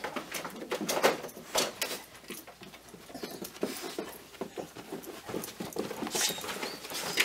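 A dog moving about on a leash with its handler: an irregular patter of footsteps and small sharp clicks and jingles, the loudest about a second in and again near the end.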